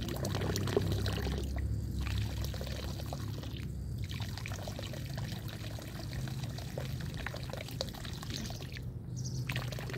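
A jet of water pouring and splashing from a hose fed by a 12-volt electric pump made from a Saipa Pride car fuel pump, with a steady low hum underneath; the splashing dips briefly a few times. The uploader says the fuel pump is partly burnt out, so the pressure and reach are weaker than they should be.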